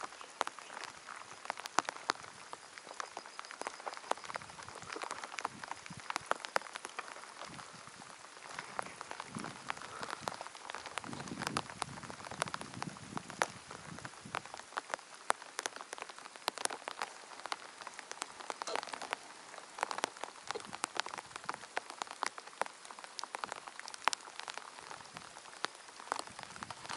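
Rain falling: a steady patter with many separate drops ticking sharply throughout.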